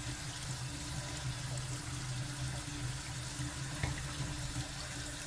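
Water running steadily from a newly installed bathroom faucet into the sink basin, with the hot water on. A light tap about four seconds in.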